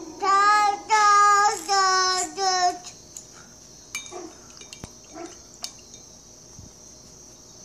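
A young child singing a short tune of four held, wordless notes in the first three seconds, then falling silent. Afterwards only faint taps and clicks over a steady high hiss.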